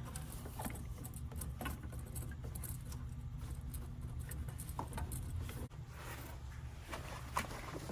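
Scattered light clicks, taps and scraping as tools and small metal parts are handled inside a furnace cabinet while the limit switch is unbolted, over a steady low hum.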